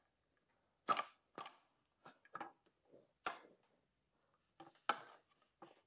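Light clicks and taps of bicycle headset parts being handled and seated on a carbon fork's steerer tube in the head tube, about nine irregular knocks, the sharpest about a second in and a little after three seconds.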